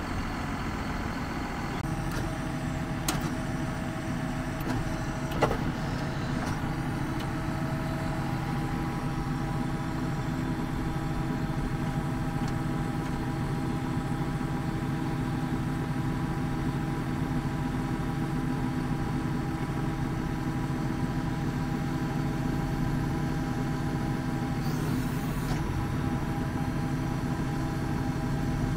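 John Deere 6155M tractor's 155 hp Tier 4 diesel engine idling steadily, with a couple of sharp clicks in the first few seconds and a short hiss near the end.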